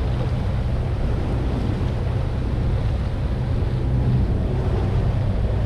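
Boat engine running steadily under wind buffeting the microphone and water rushing past the hull.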